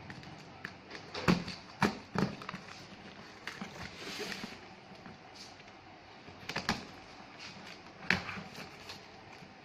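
Handling noise from a taped cardboard parcel being cut open and turned over on a wooden table: several sharp knocks and clicks, with a scratchy tearing rasp about four seconds in.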